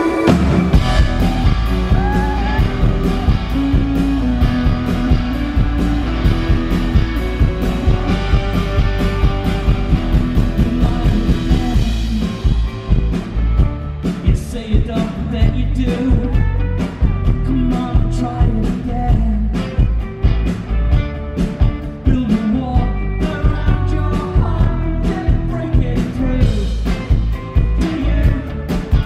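Live rock band playing through a PA: drums, electric guitars, bass and keyboard, with a male lead vocal. The full band comes in at the start; about twelve seconds in the sound thins at the top, leaving sharp drum hits under the singing.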